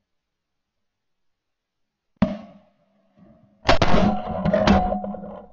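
Dead silence for about two seconds, then a single sharp drum hit that dies away, then a short burst of drum-heavy music with repeated hits from about three and a half seconds in.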